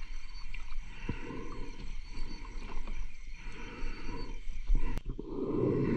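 A diver's breathing heard underwater: a series of rough, rumbling breaths, each about a second long with short gaps between them, the loudest one near the end.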